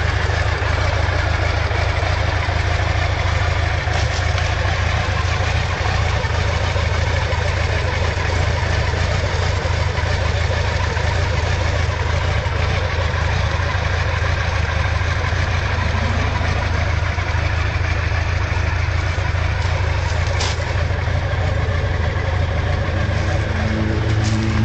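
Honda CB750's air-cooled inline-four engine idling steadily, with an even low exhaust note.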